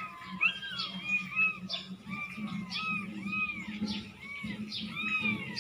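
Kittens mewing over and over: short, high, rising-and-falling mews about two a second. A steady low hum runs underneath.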